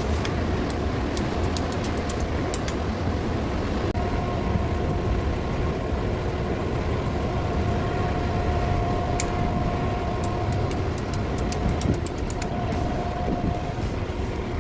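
Large exhaust fan running with a steady low drone. A steady whine joins about four seconds in, with scattered light clicks.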